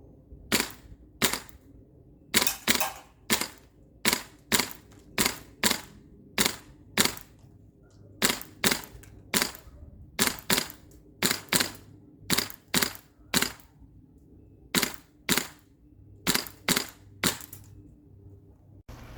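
Airsoft gun firing about thirty sharp single shots, irregularly spaced, often two to four in quick succession with short pauses between runs.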